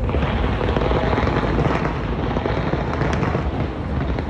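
Fireworks display going off: a dense, continuous crackling over a steady low rumble of bursts.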